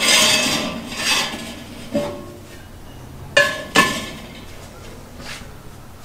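Cast iron skillets clanking against the steel wire grate of a charcoal kettle grill as they are turned upside down and set on it for seasoning: a run of metallic knocks with short ringing, the loudest at the start and two sharp ones close together a little past halfway.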